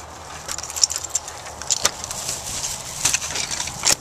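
A key ring jingling with sharp metallic clicks as a key turns in a door's deadbolt and the knob is worked, the door then opened.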